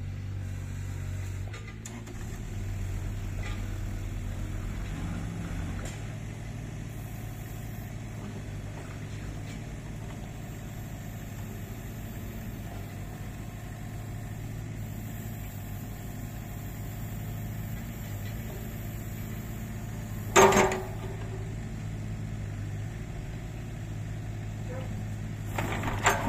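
Kubota KX61-3 mini excavator's three-cylinder diesel engine running steadily as the boom and bucket are worked, with one sharp, loud clank about twenty seconds in and a few smaller clanks near the end.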